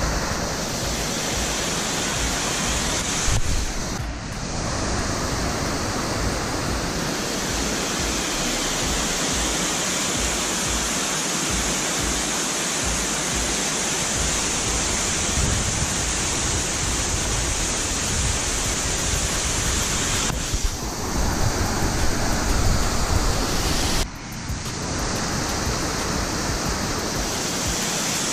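Steady rushing of a small waterfall and stream cascading over rock ledges. It drops away briefly a few times.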